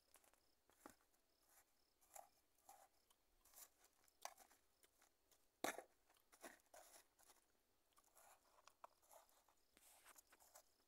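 Faint, irregular crunching and scraping of clumpy soil as a pair of scissors digs and stirs it in a plastic tub, the loudest scrape a little past halfway.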